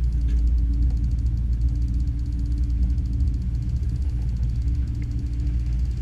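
Boat engine running steadily, a low rumble with a faint hum.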